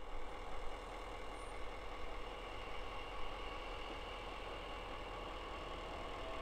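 An engine idling steadily, a constant low hum with a few faint higher whining tones over it.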